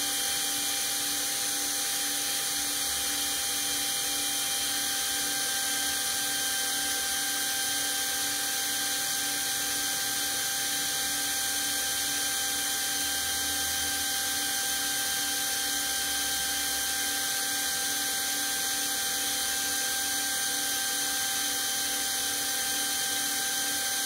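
Cordless drill running steadily with a diamond-tip bit grinding through a bone china teacup under steady pressure. A continuous, even whine that does not change in pitch.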